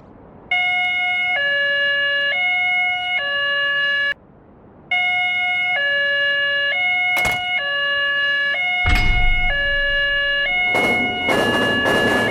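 Electronic two-tone hi-lo siren, switching between a higher and a lower tone about once a second. It cuts out for nearly a second about four seconds in, then starts again. A sharp click comes about seven seconds in, and a rushing noise joins the siren near the end.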